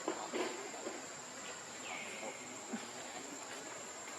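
Outdoor background with a steady high-pitched insect drone, like crickets, and a few faint short animal calls.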